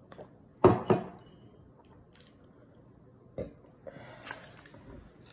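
A woman burping twice in quick succession about a second in, with a smaller burp a few seconds later. Near the end comes a breathy puff of air blown out through her cheeks.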